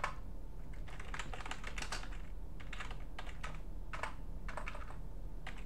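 Typing on a computer keyboard: several quick runs of keystrokes separated by short pauses.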